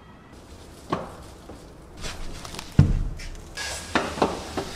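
Heavy cardboard furniture boxes being handled: a knock, then one heavy low thud about three seconds in, followed by quick clicks and scuffs.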